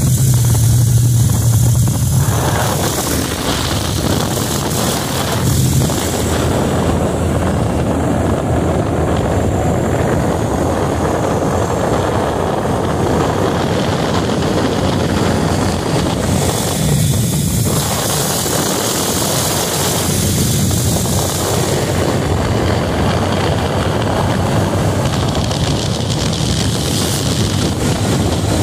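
Motorcycle riding along at road speed: the engine drones steadily under a loud rush of wind over the microphone, swelling briefly near the start and twice more later on.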